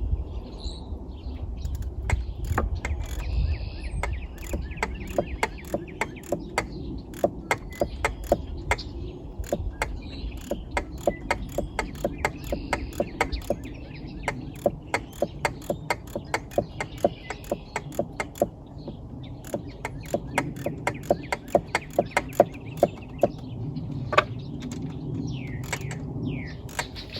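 Hand socket ratchet clicking in long runs of about three clicks a second as the cylinder head bolts of a 1985 Evinrude 70 HP outboard are run down before torquing.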